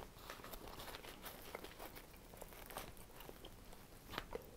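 Faint crinkling and small ticks of a baked pepperoni pizza being picked apart and a slice lifted from the paper and cardboard under it, with one sharper tick about four seconds in.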